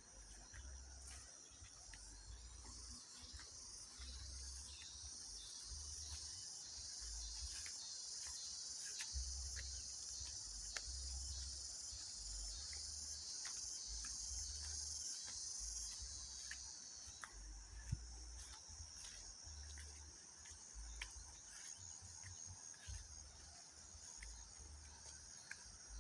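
A steady, high-pitched chorus of insects, louder in the middle and easing off later. Scattered small clicks and an intermittent low rumble run underneath.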